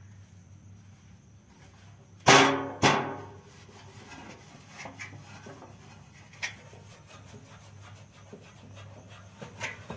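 Two loud metallic clangs about half a second apart, a little over two seconds in, each ringing briefly, from metal inverter parts being handled. Light knocks and cloth rubbing on metal follow.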